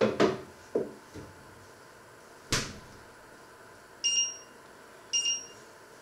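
Two short electronic beeps from an electric cooktop's touch control panel as a finger presses it, about four and five seconds in. Before them, a few sharp knocks near the start and a single sharp click about halfway through.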